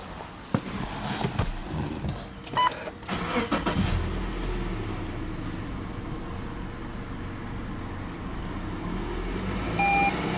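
Subaru Legacy 2.5i's EJ25 flat-four engine heard from inside the cabin: a few clicks and a short chime, then the engine catches about four seconds in and idles steadily. Near the end the revs climb and a short beep sounds.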